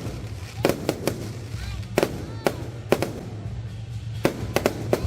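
Firecrackers going off in sharp, irregular bangs, roughly one or two a second, over a steady low hum.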